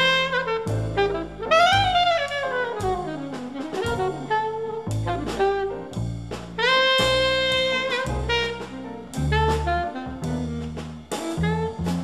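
Jazz sextet playing: a saxophone carries the melody line, with a long falling smear about two seconds in and a held note around the middle, over bass and drums.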